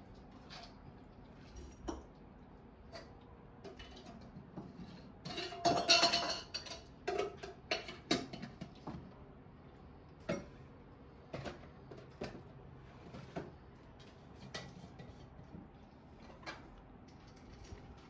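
Cats scuffling and swatting on a wooden shelf: scattered light knocks and clinks, with a louder flurry of clattering about six seconds in.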